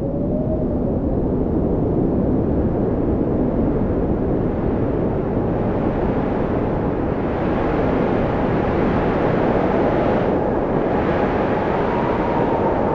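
Wind buffeting a phone microphone outdoors in storm weather: a loud, steady low rumble, with a faint pitched tone rising briefly near the start and again near the end.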